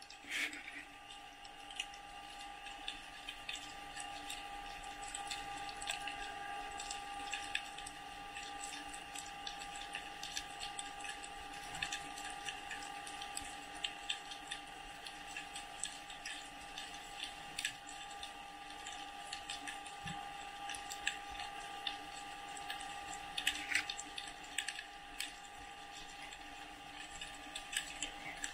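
Underwater ambience: a dense, irregular crackle of small clicks over a steady hum.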